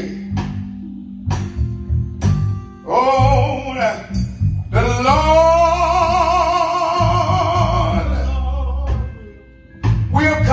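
A man singing a gospel song into a microphone, amplified, over electric bass. His phrases build to a long held note with a wide vibrato from about halfway in, a short break follows, and the singing picks up again near the end.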